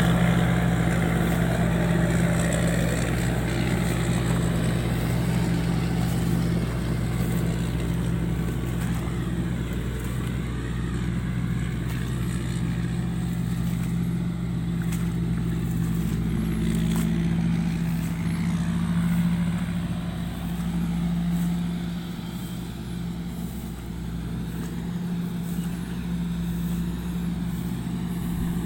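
Rice combine harvester's engine running steadily, a low even drone that gets a little quieter after about twenty seconds.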